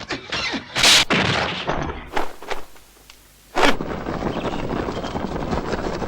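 A fast montage of wuxia film sound effects: a string of sharp hits and crashes, the loudest about a second in and another a little past the middle, followed by a steady noisy rush for the last couple of seconds.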